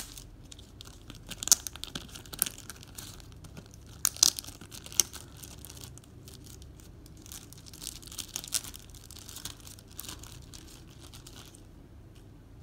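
Parcel packaging being torn and crinkled open: irregular sharp crackles and rustles, loudest in the first five seconds and softer toward the end.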